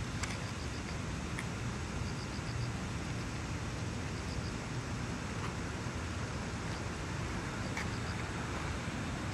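Steady outdoor background noise: an even, low-heavy hiss with a few faint ticks.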